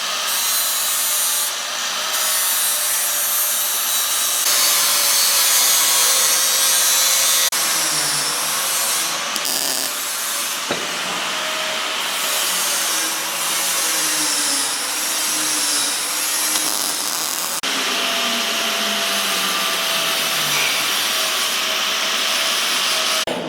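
Power tool cutting steel railing stock, running loud and steady with a high hiss, with a few abrupt changes where the footage is cut.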